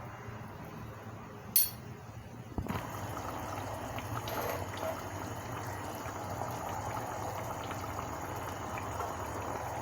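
A sharp click, then a knock about two and a half seconds in, after which liquid bubbles steadily in a cooking pot.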